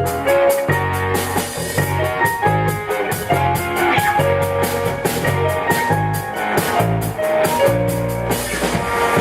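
Live rock band playing with a steady drum kit beat and cymbals, a bass line and guitar.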